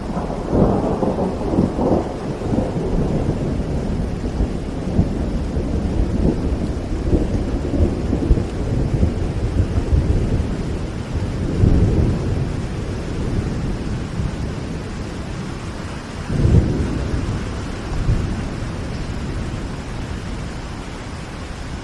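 Steady rain falling, with low thunder rumbling underneath. The thunder swells near the start and twice more later on, the last a short, sharp low surge.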